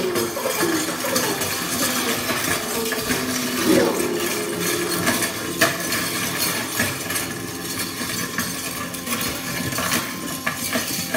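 Improvised hand percussion: small metal and wooden objects rattled, clinked and knocked together in a dense, irregular clatter, with a few pitched notes sounding in the first few seconds.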